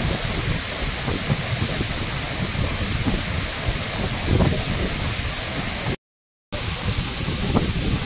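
Large mountain waterfall rushing steadily, with wind buffeting the microphone. The sound cuts out completely for about half a second around six seconds in.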